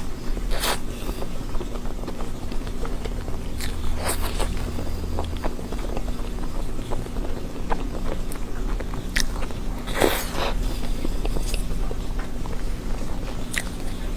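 Close-miked eating of chocolate desserts: biting and chewing, with irregular sharp crunches and clicks every second or two over a steady low hum.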